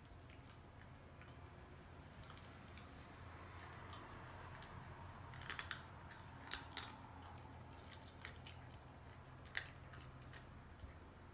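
Cat crunching dry kibble from a ceramic bowl: faint, scattered crunches and clicks, with a small cluster about five and a half seconds in and the sharpest click about nine and a half seconds in.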